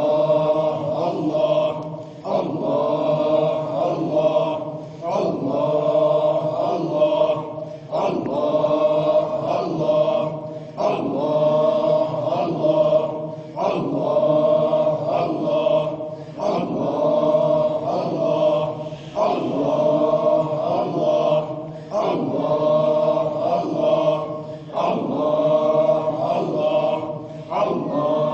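Men of a Sufi hadra chanting dhikr together in unison, the same short phrase repeated over and over in a steady cycle of about one every three seconds, with a brief break between repeats.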